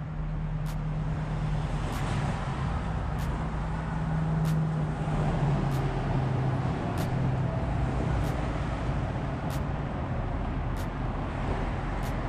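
A steady engine hum whose pitch drops a little about five seconds in, with faint sharp ticks repeating about once every second and a quarter.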